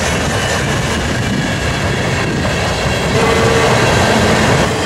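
Freight train cars rolling past at speed: a steady, loud rumble of steel wheels on rail with rapid clicking over the rail joints.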